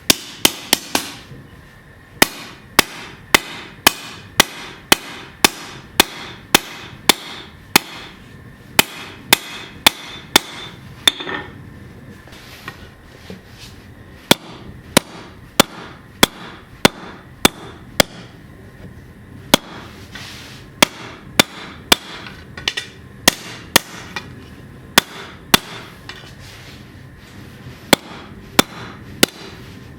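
Hammer blows on hot 15N20 high-carbon steel over an anvil, forging out a chef's knife blade: runs of sharp strikes about two a second, broken by short pauses.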